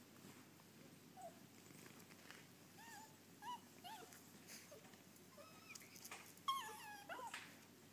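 Faint dog whimpering from a toy poodle: a run of short, high whines that bend up and down, the loudest and longest near the end.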